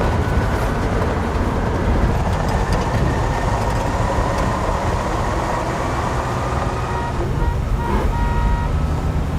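A heavy vehicle's engine running steadily, low and heavy, with a couple of faint knocks near the end.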